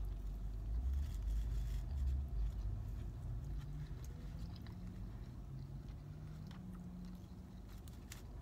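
A person chewing a mouthful of taco, with a low rumble underneath that is strongest in the first couple of seconds.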